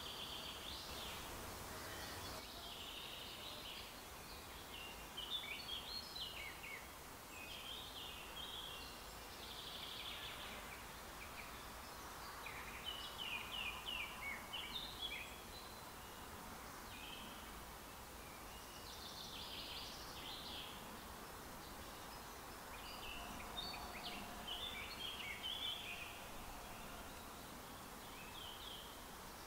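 Small songbirds singing in repeated bursts of high chirps and trills over a steady faint background hush.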